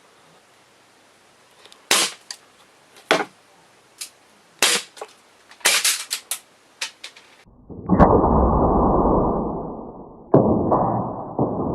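Gas airsoft pistols firing at two layers of cardboard: a string of sharp snaps and clicks over several seconds, the loudest ones shots hitting the cardboard. After that comes a loud, muffled rumbling noise with no clear source.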